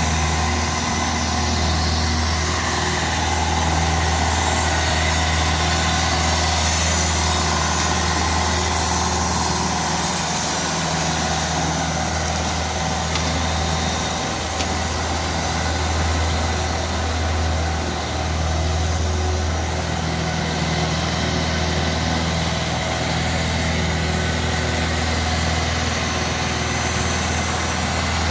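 Compact tractor engine running steadily as it tows an ice-resurfacing unit over the rink, a low even drone.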